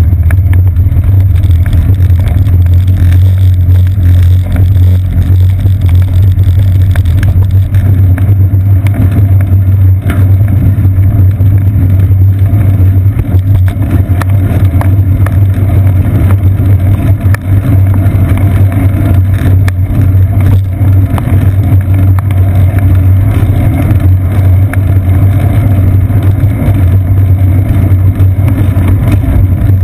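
Steady, loud low rumble of road vibration and wind picked up by a seat-post-mounted GoPro in its waterproof housing as the bicycle rolls along, with scattered small knocks from bumps in the path.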